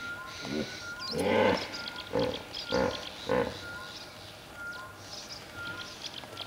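Hippopotamus grunting: one long grunt about a second in, then three shorter grunts evenly spaced, with small birds chirping.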